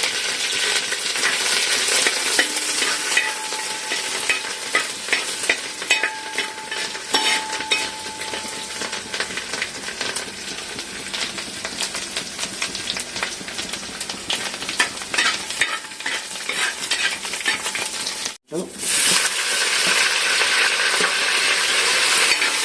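Crushed ginger and garlic frying in hot coconut oil, a steady sizzle with a spoon stirring and clicking against the pan. The sound breaks off for an instant about three-quarters of the way through, then the sizzling comes back louder.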